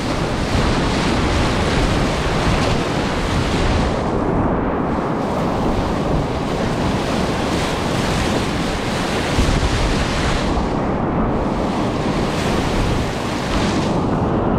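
Steady rush of a large river rapid in high flow, about 250 cubic metres a second of whitewater, with wind buffeting the microphone.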